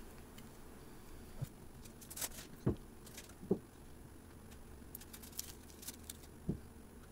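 Quiet handling sounds of hands wrapping eggplant and ham in damp nori: a few soft, separate taps and light rustles, the clearest two close together around the middle.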